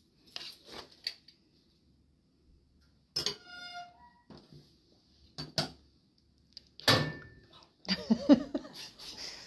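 Utensils knocking, clinking and scraping against a metal cooking pot as chunks of cheese are stirred into a thick sauce. There are scattered sharp clinks, one of them about three seconds in with a brief metallic ring, and a louder knock near the end.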